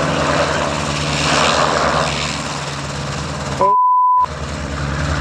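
A small helicopter's engine and rotor running steadily at a low hover, with a rushing noise over a steady low hum. About three and a half seconds in, the sound cuts out for about half a second under a steady censor beep.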